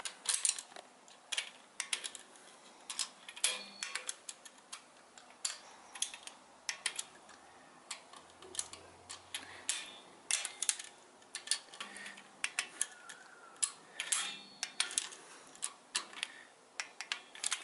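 Torque wrench ratcheting on the rocker arm bolts of a 6.7 Cummins cylinder head: sharp metallic clicks in short, irregular runs as each bolt is gone over again to check its torque.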